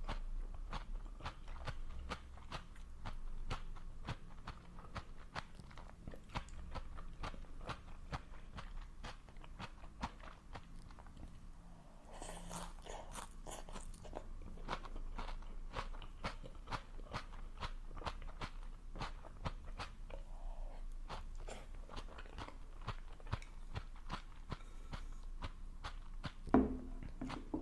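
Close-miked chewing and biting of food, a dense run of small crunches and mouth clicks. A single louder knock comes near the end.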